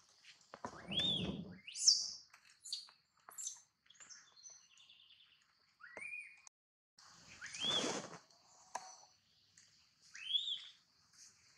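Infant long-tailed macaque crying: four high, arching squeals, about a second in, around six and eight seconds in, and near the end. The first and third have a rough, noisy edge. Faint high chirps sound between the cries.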